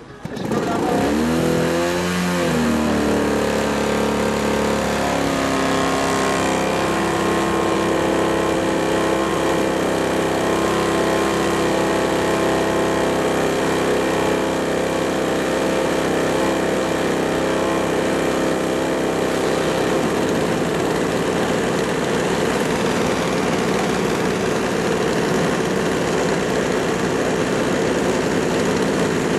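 Single-cylinder 38cc petrol engines of a giant RC Avro Lancaster model being hand-started. One catches right at the start and its speed wavers for a couple of seconds before it settles into a steady idle. The engines then keep running together at slightly different speeds.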